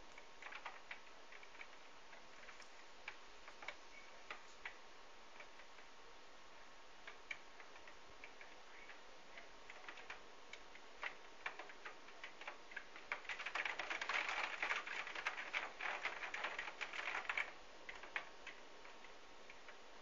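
Raindrops ticking irregularly against a window and its sill in a windstorm. They come faint and scattered, then as a dense spell of rapid taps about two-thirds of the way through that lasts around four seconds.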